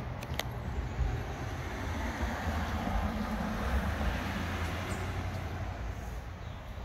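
A pickup truck driving past on the street. Its engine and tyre noise swells, peaks about halfway through, then fades away.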